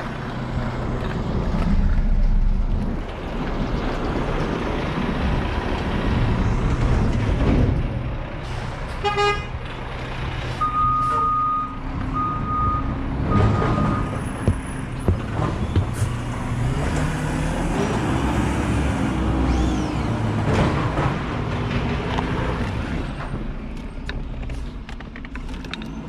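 Steady low engine rumble of a nearby vehicle, with three electronic beeps about ten seconds in.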